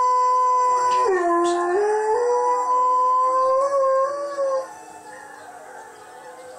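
Alaskan Malamute howling: one long, loud howl that dips in pitch about a second in, climbs back in steps and ends about four and a half seconds in. Fainter wolf howls from a television carry on after it.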